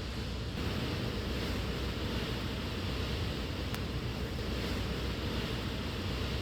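Steady rushing noise of wind, with a single short click almost four seconds in.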